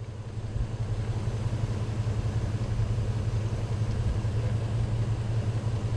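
Pickup truck engine idling steadily, a low hum.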